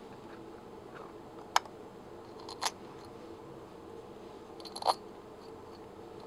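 Light clicks and taps of the metal pulley housing cover and its small screws being handled and fitted onto the telescope mount: three sharp clicks a second or two apart, the loudest near the end, over a faint steady hum.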